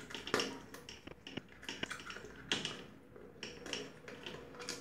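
Irregular small clicks and scrapes of pliers working on a ceiling light socket, several light ticks a second.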